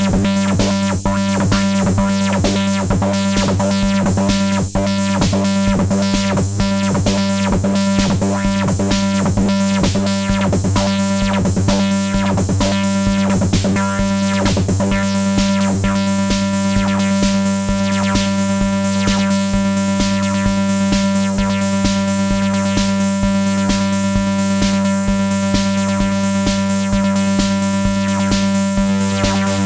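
Erica Synths Bassline analog bass synthesizer playing a sequenced pattern: fast, evenly repeating notes over a steady low drone, with sweeping changes in tone about halfway through, after which the notes blur into a more sustained tone.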